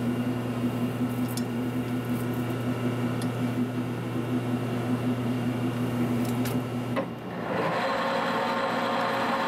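Monarch lathe's electric drive motor humming steadily with the spindle stopped; about seven seconds in there is a click as the spindle is engaged, and the chuck spins up with a fuller, higher whir of the gearing.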